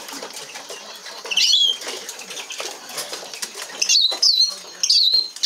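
A young male Eurasian siskin flutters and hops about in a wire show cage. Its wings rattle briefly against the bars and perches. High, sharp siskin chirps glide down in pitch, one a little over a second in and three in quick succession near the end.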